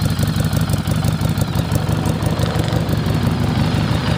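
2015 Harley-Davidson Street 500's liquid-cooled 500cc V-twin, fitted with a Screaming Eagle exhaust, idling steadily with an even low pulse.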